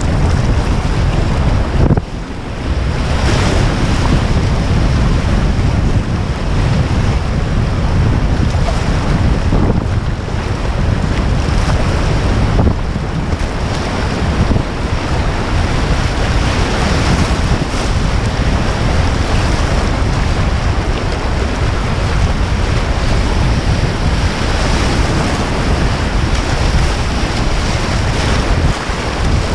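Rushing river water of a whitewater run, with heavy wind buffeting on the microphone; the noise dips briefly about two seconds in.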